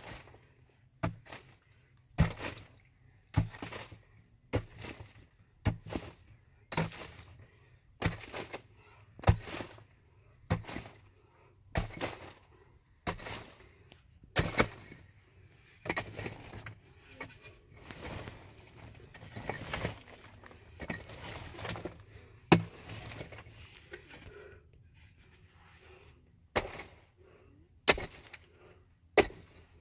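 Sharp blows struck by hand in a steady rhythm, about one a second, like chopping or hammering. Around the middle a rough rustling and scraping fills the gaps between them.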